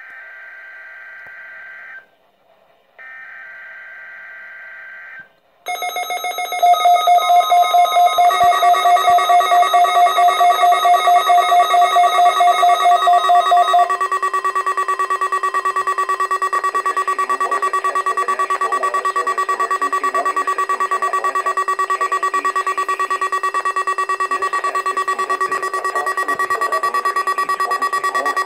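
NOAA Weather Radio Required Weekly Test. Two bursts of SAME digital header, a raspy data warble about two seconds long each with a second's gap between them. From about six seconds in, a weather radio receiver's alert beeps rapidly together with a steady alert tone, and the tone runs on alone after the beeping stops at about fourteen seconds.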